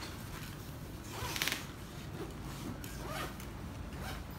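Zipper on a black fabric goalie-mask bag being pulled open: one short rasping zip about a second and a half in. Cloth rustles and smaller scrapes follow as the bag is handled.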